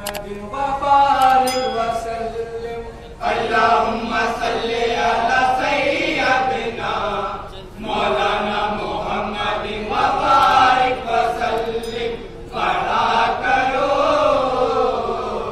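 Men chanting a naat, an Urdu devotional song in praise of the Prophet, amplified through a microphone. It goes in long sung phrases with brief pauses every four or five seconds.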